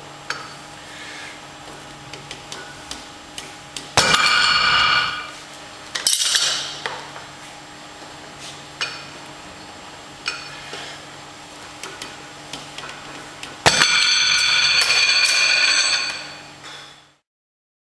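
Iron weight plates on a loading pin under a Rolling Thunder grip handle, clinking and clanging as the loaded pin is lifted and set down. Light metallic clicks run throughout, with three loud clangs about 4, 6 and 14 seconds in, each ringing on. The last rings for about three seconds before the sound cuts off.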